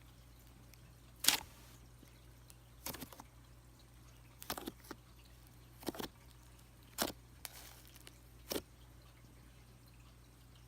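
Thick cream-cheese-textured slime being squished and pressed by hand, giving six short wet pops and squelches about every second and a half.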